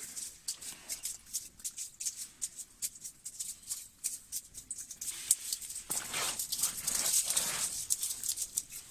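Freshly caught roach (taran) flapping on the ice, a rapid, irregular patter of light slaps that grows denser and heavier about six seconds in.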